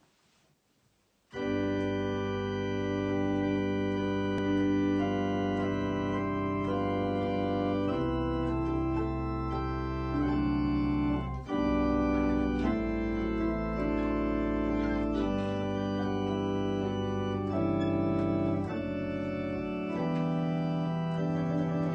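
Wyvern Sonata MK2 electronic organ playing sustained chords over low bass notes, the chords changing every one to three seconds. It starts about a second in, out of near silence.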